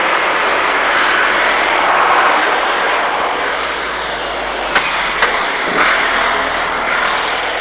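A passing vehicle: a steady rushing noise that swells about two seconds in and fades toward the end. Two light clicks about five seconds in.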